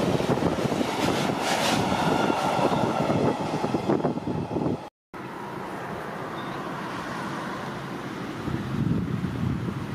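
Intermodal freight train rolling past, its wagons rumbling and rattling over the rails as the last wagons go by. After a sudden cut, a quieter steady rush of wind on the microphone.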